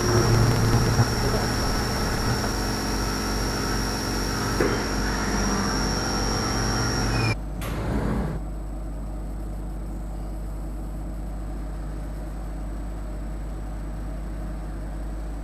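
Syil X5 Pro CNC milling machine cutting aluminium stock: a busy machining noise with a steady high-pitched spindle whine, which cuts off suddenly about seven seconds in as the first side is finished. A steady low machine hum is left after that.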